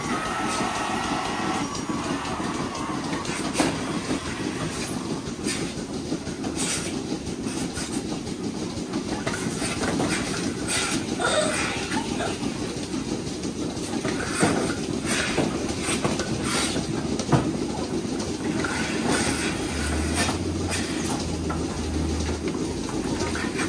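Milking parlour machinery running with a steady mechanical hum, broken by scattered clanks and clicks from the milking equipment as it is handled.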